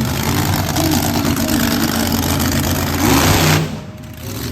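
Monster truck engine revving hard, its pitch rising and falling. It is loudest just before it drops back sharply near the end.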